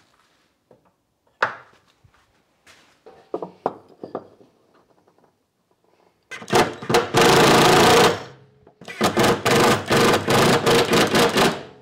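Light knocks of wooden blocks being set against the cabinet's plywood back, then a cordless drill/driver driving a screw into a wooden block: one run of about two seconds, then after a short pause a series of short trigger pulses as the screw goes home.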